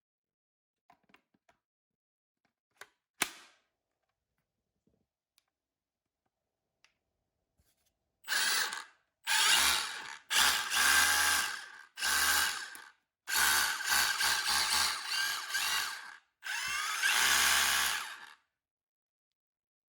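Milwaukee M18ONEFHPX FUEL cordless SDS-plus rotary hammer drill running in six bursts of one to three seconds each, a steady motor tone over a fast low hammering pulse. A few light clicks and one sharp click come before it, about three seconds in.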